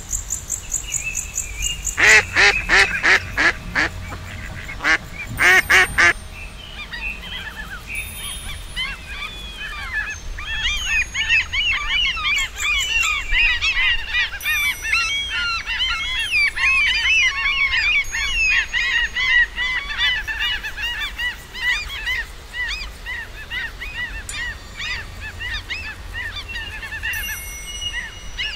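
Birds calling: a quick run of about seven loud, evenly spaced calls about two seconds in and two more a few seconds later, followed by a dense chorus of many birds chirping and warbling over one another, thinning toward the end.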